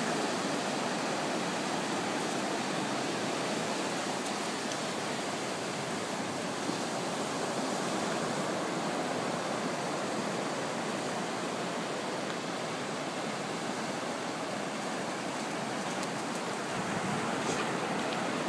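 Steady wash of ocean surf breaking on a beach, an even rushing noise that holds level throughout.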